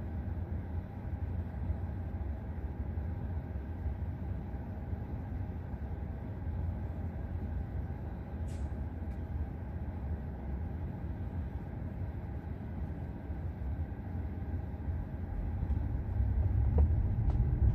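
Steady low road and tyre rumble inside the cabin of an electric Tesla driving itself, with no engine sound; a single sharp click about halfway through, and the rumble grows a little louder near the end.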